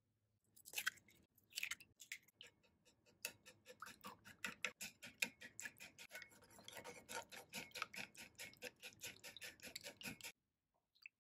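Chopsticks beating eggs in a ceramic bowl: a fast run of light clicks as the sticks hit the bowl, about four or five a second, stopping abruptly near the end.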